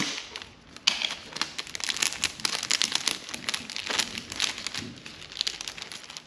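Clear plastic sleeve and sticker sheets crinkling as they are handled, a dense run of small crackles that starts with a sharp click.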